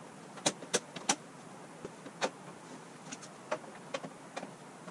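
Sharp plastic clicks and snaps as plastic pry tools are worked into the seam of a TV's plastic rear cover to pop it loose: three loud snaps in the first second or so, another a little after two seconds, then several lighter clicks.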